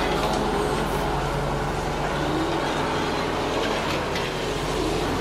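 Radio-controlled toy excavator running: a steady mechanical hum and whir of its motors and gears as the upper body swings round and the arm moves.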